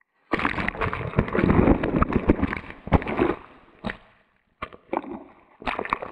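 Shallow surf washing over a small action camera at the water's edge, heard on the camera's own microphone: splashing, sloshing and gurgling with many crackles and knocks as water and sand hit it. It starts suddenly just after the beginning, dies away after about four seconds, then comes back in three short bursts.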